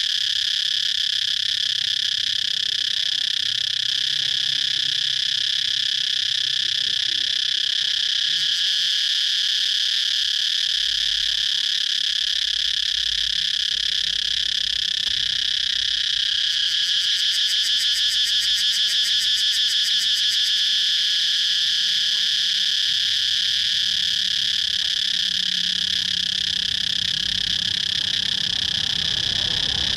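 Cicadas singing in a continuous high, steady buzz. About halfway through it swells briefly into a rapid pulsing before settling back to the steady drone.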